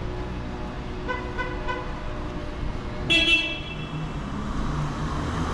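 A car horn gives one short toot about three seconds in, over steady street traffic noise. The traffic noise swells near the end as a vehicle approaches.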